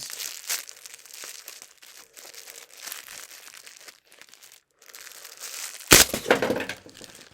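Packaging and small drink-mix bottles rustling and clinking as they are handled. About six seconds in, a sudden loud clatter of the bottles being knocked over or dropped, a mishap.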